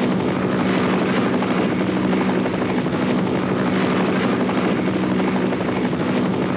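Helicopter engine and rotor running steadily: a constant drone with a fast fluttering beat.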